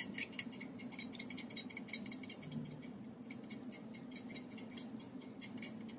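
Metal fork whisking oil and balsamic vinegar in a small ceramic bowl: a quick, steady run of light clicks and scrapes as the tines strike the bowl.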